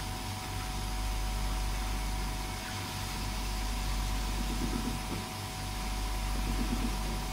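Steady low mechanical hum from a machine running, with a few faint handling noises as metal parts are screwed together.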